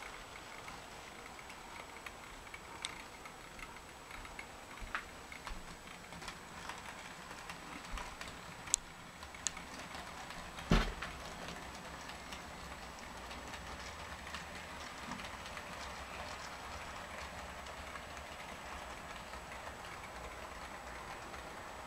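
Model steam locomotive and passenger cars running along the track, a steady rolling hum with small clicks from the wheels over the rails. One sharp knock about eleven seconds in.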